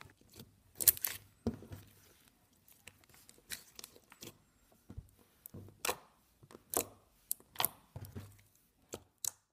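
Clicky slime being squeezed and poked, giving irregular wet clicks and pops, about a dozen spread unevenly.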